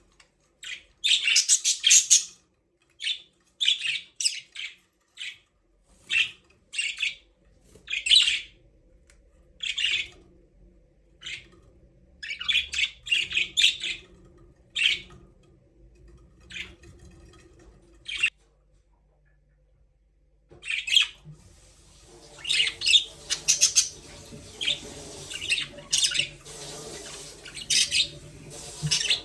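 Budgerigars chirping and squawking in short repeated bursts of high-pitched calls, with a brief lull about two-thirds of the way through, then denser overlapping chatter toward the end.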